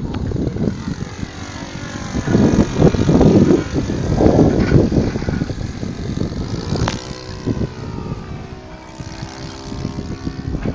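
Radio-controlled Hawker Hurricane Mk1a scale model airplane flying, its motor and propeller droning with the pitch sliding up and down as it passes. It is loudest between about two and five seconds in, and there is one sharp click near the middle.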